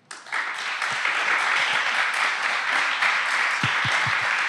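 Audience applauding, starting suddenly and going on at a steady level.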